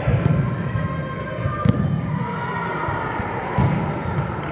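Volleyballs being hit and bouncing on the sport-court floor in a large hall, a string of dull thumps with one sharp smack about a second and a half in.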